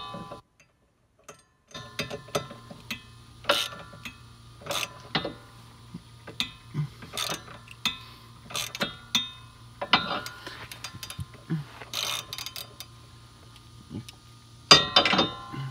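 Socket ratchet wrench clicking in short, irregular strokes as a bolt is tightened to draw a part into the wheel hub.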